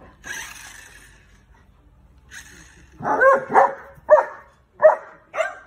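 German Shepherd barking in play: five short barks in quick succession, starting about three seconds in.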